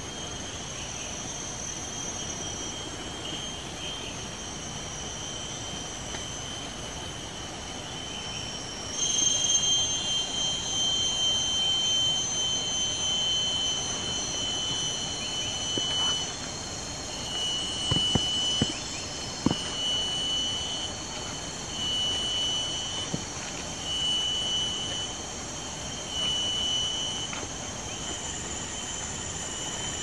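Insects in the forest keep up a steady high-pitched whine. About nine seconds in, a louder whine joins and later breaks into regular pulses about every second and a half. A few sharp knocks come near the middle.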